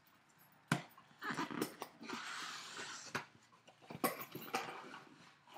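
A cardboard shipping box being opened by hand: tape ripped and the flaps pulled apart. There is a sharp crack about three quarters of a second in, a long rasping tear around the middle, and another knock about four seconds in.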